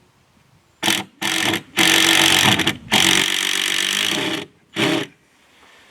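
Handheld power drill run in five trigger pulls, two short, two long in the middle and a short one at the end, as when driving screws into floor boards.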